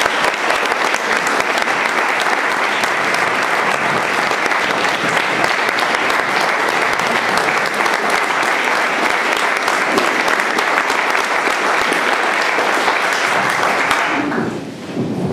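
Audience applauding: a room full of people clapping steadily, dying away near the end.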